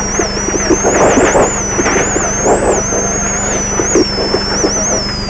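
Rally car driven hard on a gravel stage, heard from inside the cabin: the engine and drivetrain running at high revs with a high whine that rises and falls with the revs, over constant road and tyre noise.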